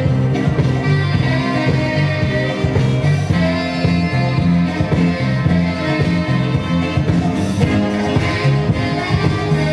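Loud dance music with a steady beat and a repeating bass line.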